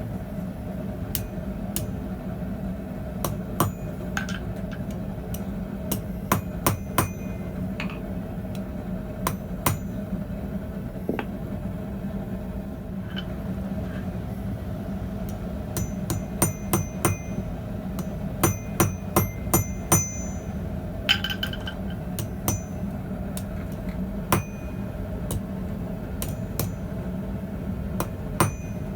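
Hand hammer striking hot steel on a small bread loaf anvil: irregular blows, some in quick groups, each with a short bright ring, over a steady low hum.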